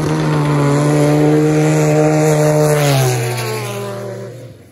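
Snowmobile engine at full throttle on a grass drag run, holding steady high revs. About three seconds in its pitch falls and the sound fades away.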